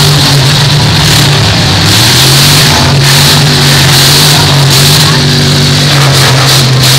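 Full-size demolition-derby cars' engines running hard together in a loud, steady drone, the pitch dipping briefly about two seconds in.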